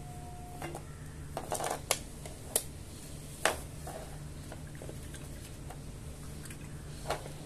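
Light clicks and taps of handling as a painted CD and paintbrush are set down on a wooden floor: a cluster in the first few seconds, the sharpest about three and a half seconds in, and one more near the end. A low steady hum lies under them.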